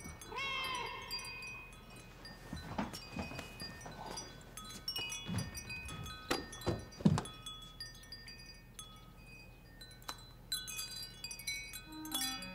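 Metal tube wind chime tinkling, its high notes struck at scattered moments and ringing on over one another. A few dull knocks land about halfway through, the loudest of them about seven seconds in.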